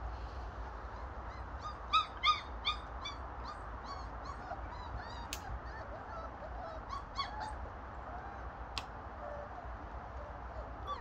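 A rapid series of short, high, squeaky animal calls, about three a second, loudest about two seconds in and then fainter for several seconds. Two sharp clicks come later, over a steady low hum.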